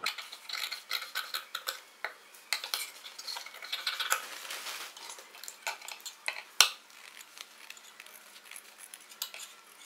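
Tailoring shears cutting through paper collar canvas: a run of irregular crisp snips and paper crackle, with a brief rustling slide of the blades about four seconds in and one sharper snip a little after six seconds.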